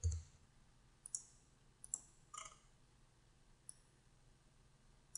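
Sparse, quiet clicks of a computer mouse and keyboard, five or six short clicks spaced about a second apart.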